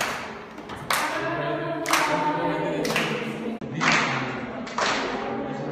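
A group of people singing or humming long held notes together, with a loud rhythmic hit about once a second, like massed claps or stamps, ringing in a large room.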